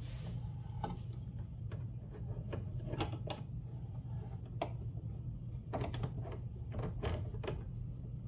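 Irregular clicks and light knocks from hands handling the fabric, tape and plastic hoop of an embroidery machine while the back liner is set and taped down, over a steady low hum.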